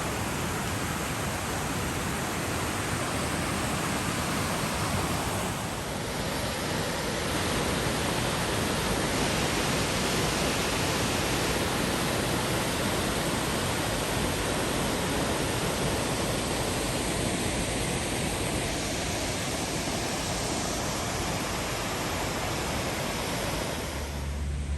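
Waterfall rushing: a steady, dense wash of falling water with no breaks, its tone shifting slightly a few times.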